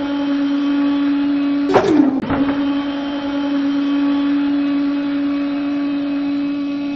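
Small electric DC motor of a homemade toy pump machine running with a steady whine. About two seconds in there is a sharp click, and the pitch sags briefly before settling back to the same steady hum.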